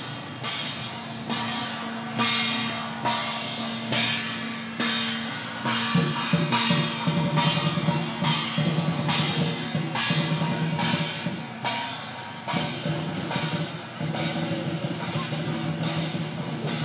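Chinese procession percussion of drums, gongs and cymbals beating a steady rhythm, with a crash a little more than once a second. Under it is a low sustained tone that drops in pitch about six seconds in.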